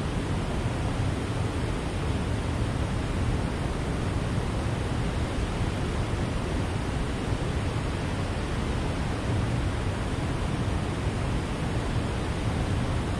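Water rushing steadily through the dam, an even unbroken noise with a deep low end.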